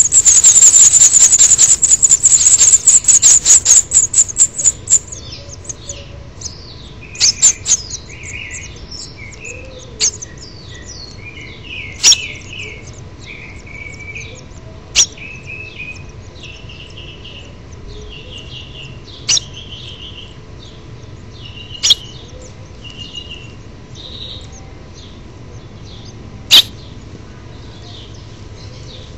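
House finch nestlings begging for food in a loud, rapid, high-pitched chirping chorus that dies down after about five seconds into softer scattered chirps. A few sharp clicks or taps are heard now and then.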